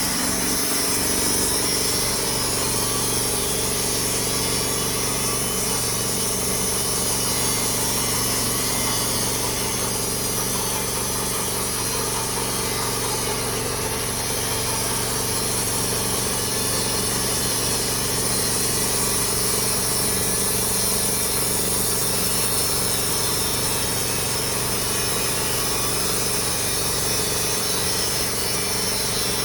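Hudson portable band sawmill running steadily, its engine under even load as the blade cuts through a Norway spruce log.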